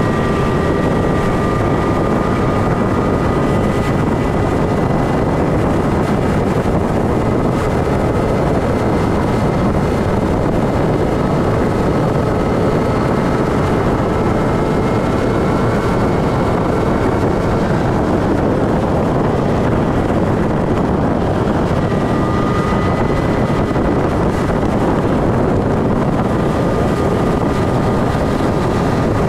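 Motorcycle running at road speed, a steady loud rush of engine and wind noise over the microphone, with a faint high whine that drops out for a few seconds past the middle and then returns.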